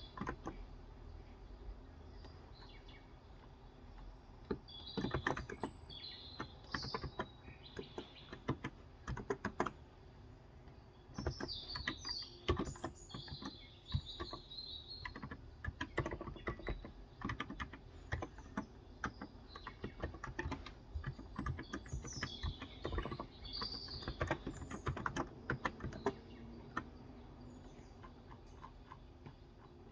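Typing on a Cox Endeavor tenkeyless keyboard with 35 g electrostatic capacitive switches, the keystrokes coming in quick runs with short pauses between them. Birds chirp in the background now and then.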